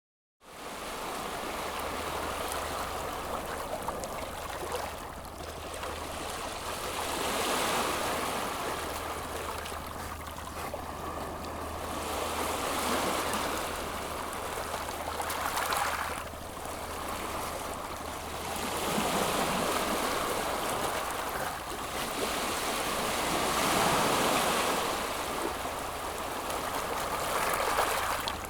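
Calm sea waves washing in, the surf swelling and easing every four to five seconds over a steady low hum.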